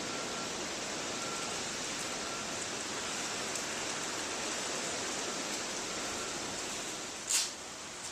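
Air-acetylene brazing torch flame hissing steadily, easing a little near the end, with one sharp click about seven seconds in.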